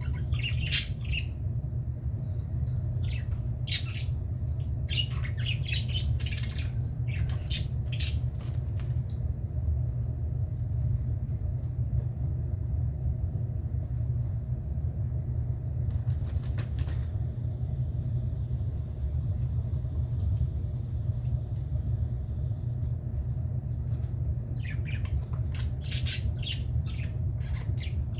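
Budgerigars chirping and squawking in quick clusters, quiet for a stretch in the middle, with a short rustling burst about halfway through, over a steady low rumble.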